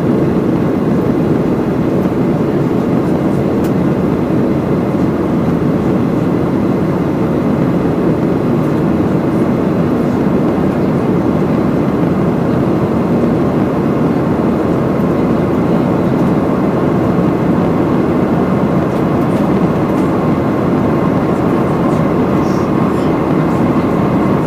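Steady cabin noise of a Boeing 737-700 during the climb after take-off: the CFM56-7B jet engines and rushing air heard from a window seat over the wing.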